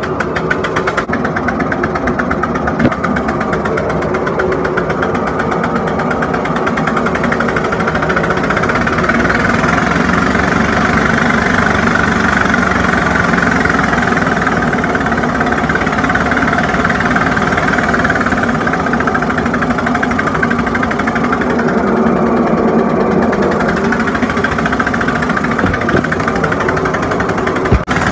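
Briggs & Stratton riding-mower engine converted to a uniflow steam engine, running steadily on high-pressure live steam with a fast, even beat, getting a little louder about eight seconds in.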